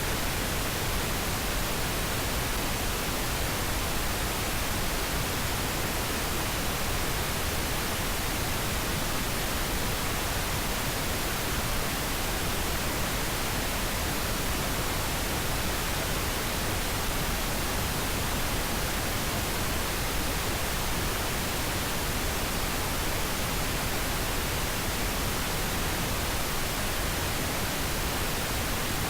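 Steady, unchanging pink noise: an even hiss spread across the whole range of pitch, with no change in level.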